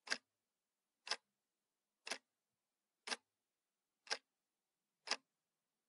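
A clock ticking, six sharp ticks evenly spaced one second apart.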